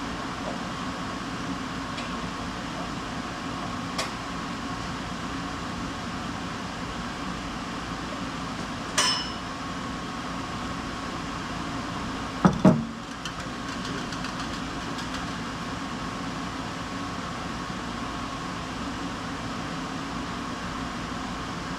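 Steady mechanical hum of a workshop, with a small tick, one ringing metal clink about nine seconds in and two sharp knocks a few seconds later, as tools and parts are handled during a car oil change.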